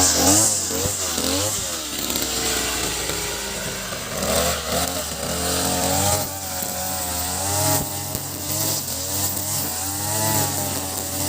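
Ogawa BG330 33cc two-stroke brush cutter engine, fitted with a larger 43cc carburettor, running and revving up and down.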